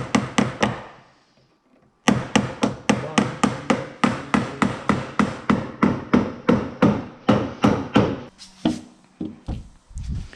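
Hammer tapping small nails into a wooden window frame to hold a glass pane, quick sharp knocks about three to four a second. There is a short pause about a second in, and the knocks grow fewer near the end.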